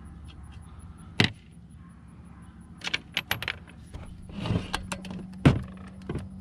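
Loose steel sockets and bits clinking and clicking as they are picked through and tried on the alternator's bolts: one sharp click about a second in, a quick run of clicks around three seconds, and the loudest clack near the end.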